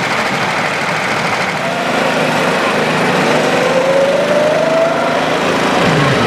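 Small go-kart engines running, with one kart's engine whine rising steadily in pitch as it accelerates away from about a second and a half in.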